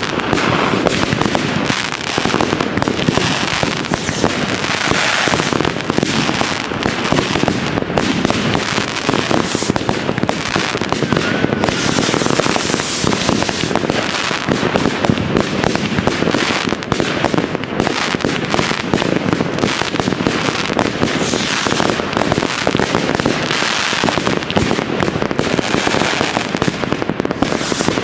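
Many fireworks going off at once: rockets and aerial shells bursting in a dense, unbroken stream of pops and crackling.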